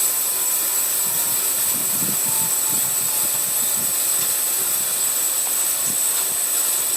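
Home-built bandsaw sawmill running free with no log in it: a steady hiss with a high-pitched whine from the spinning blade and wheels, running smoothly.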